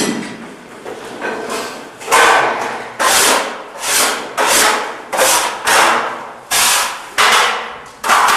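Paint roller on an extension pole working over a ceiling: a run of noisy swishing strokes, about two a second.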